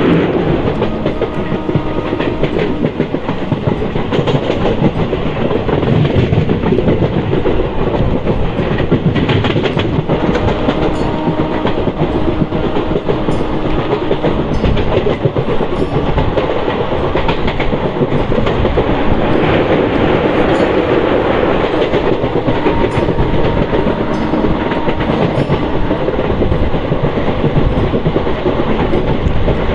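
Passenger train running on broad-gauge track, heard from on board: a steady, loud rumble of the moving coach, with the wheels clacking over rail joints.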